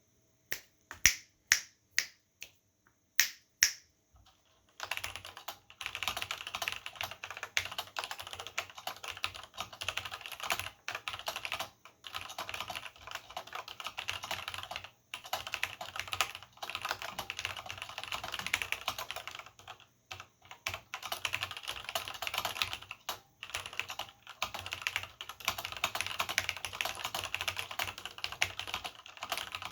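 Vintage Cherry G80 mechanical keyboard with Cherry MX Black linear switches and doubleshot keycaps being typed on. It starts with a few single key presses spaced apart, then from about five seconds in runs into fast continuous typing, with short pauses now and then.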